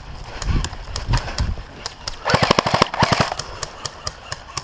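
Airsoft electric guns firing: one rapid full-auto burst of about a second in the middle, with scattered single shots clicking before and after it.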